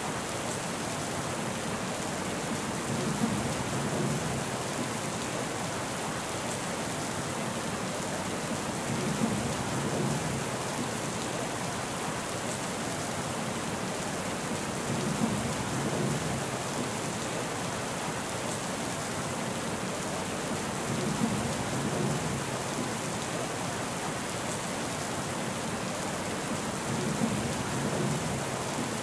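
Steady heavy rainfall, a continuous even hiss. A low rumble swells under it about every six seconds, each starting with a brief sharp peak.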